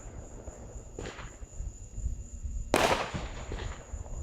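Fireworks going off: a faint bang about a second in and a louder bang near three seconds in, each trailing off with a short echo, over a low background rumble.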